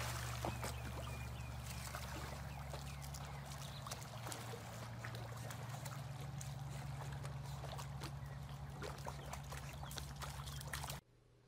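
Pool water splashing and sloshing as a person and a dog swim through it, over a steady low hum. It all cuts off suddenly near the end.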